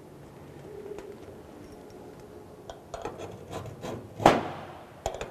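Steel scriber scratching a marking line on a steel plate: a few short scraping strokes, the loudest about four seconds in, then a light click near the end.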